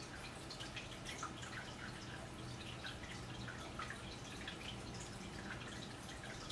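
Quiet room tone: a low steady hum with many faint, irregular little ticks and drip-like clicks scattered through it.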